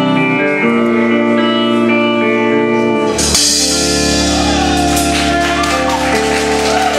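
Live band music, the closing passage of a pop song: held keyboard and guitar chords. About three seconds in, a deep bass and a bright cymbal wash join for a loud final chord.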